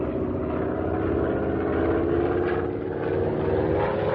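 Light propeller airplane's engine droning as a radio-drama sound effect, its pitch climbing gently in the last second or so as the plane dives low to buzz a wolf pack.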